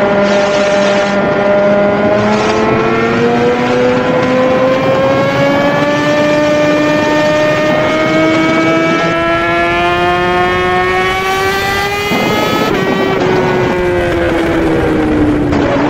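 Suzuki GSX-R1000 inline-four engine pulling hard under acceleration, its pitch climbing smoothly for about ten seconds. About twelve seconds in the pitch drops suddenly, then falls steadily as the bike slows.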